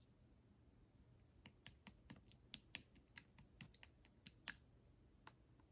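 Clear slime being pressed and squished by hand, making a quick run of small crisp clicks and pops, about five a second, with one last click near the end.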